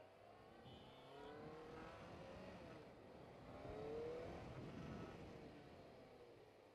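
Kawasaki ZZR600 motorcycle's inline-four engine accelerating, heard faintly. Its pitch rises as it pulls, it is loudest about four seconds in, then it eases off.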